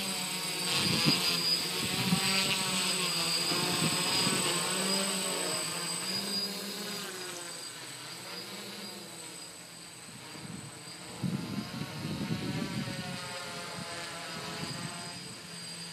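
DJI F450 quadcopter's electric motors and propellers buzzing in flight, the pitch wavering as the throttle changes. The buzz fades as it climbs away, with a stretch of rough low noise about eleven seconds in.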